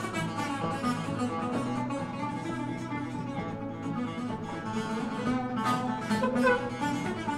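Cretan lyra playing an ornamented melody over laouto strumming, a live Cretan folk tune.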